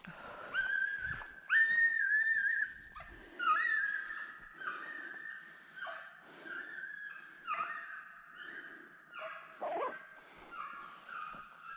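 American foxhound baying: a run of drawn-out, high calls about one a second, loudest in the first few seconds. This is the hound giving voice as it runs the fox's track.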